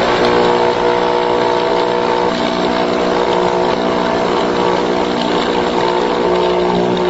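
Loudspeaker driven hard by an amplified 60 Hz sine wave under a dish of cornstarch fluid, giving a loud, steady buzzing hum rich in overtones.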